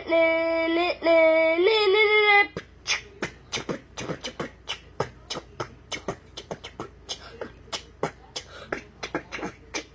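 A person's voice sings a held note for about two and a half seconds, then switches to beatboxing: a quick, uneven run of sharp mouth clicks and snaps at a lower level.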